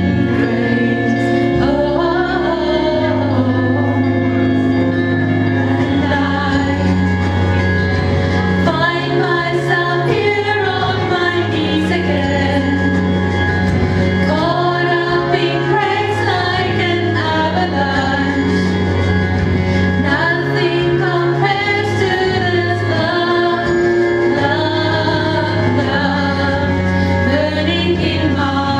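Two women singing a praise-and-worship song together into microphones over accompaniment of held chords, with low bass notes that change every couple of seconds.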